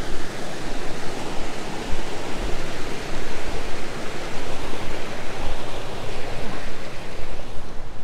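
Fast mountain river rushing below a footbridge: a loud, steady noise of running water. The high hiss thins slightly near the end.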